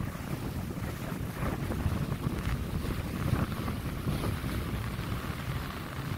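Wind rumbling and buffeting on the microphone aboard a schooner under sail, swelling slightly midway, with a fainter rushing hiss above it.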